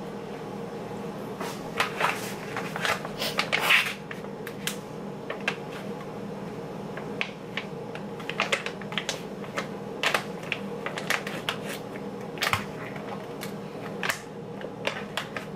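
Plastic food pouch crinkling and crackling as it is handled and torn open, in a run of sharp irregular crackles, loudest in a cluster in the first few seconds, over a steady low hum.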